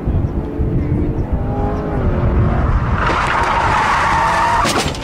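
Corvette's V8 engine revving, its pitch rising and falling, then the tyres squealing loudly for nearly two seconds from about three seconds in.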